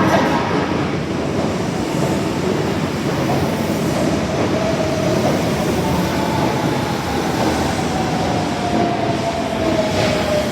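Osaka Metro 22 series subway car running on the track with steady wheel and running noise. From about halfway through, a motor whine falls steadily in pitch as the train slows.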